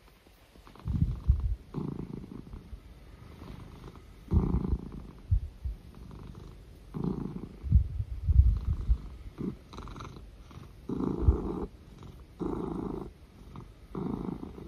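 Ragdoll cat purring loudly while being massaged. The purr swells and fades in a steady rhythm with each breath, about a second at a time, with a few low thuds in between.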